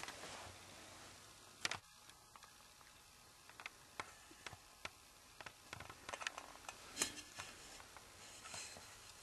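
Faint handling noise from a handheld camera being moved around: scattered small clicks and rustles, with a sharper knock near the start and another about two-thirds of the way through.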